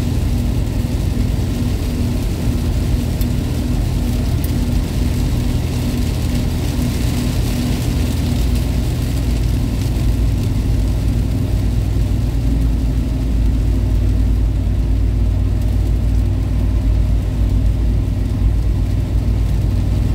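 Steady engine and road noise heard inside a Toyota Kijang cruising on a rain-soaked highway, with its tyres on the wet road and heavy rain on the car.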